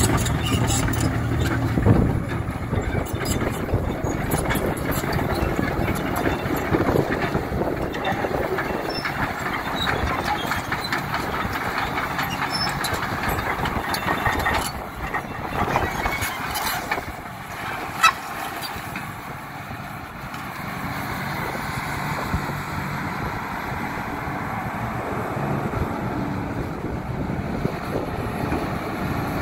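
Komatsu PC340NLC-7K excavator's six-cylinder diesel engine running as the boom and arm are worked, with scattered clanks and knocks from the machine. A single sharp bang stands out about 18 seconds in.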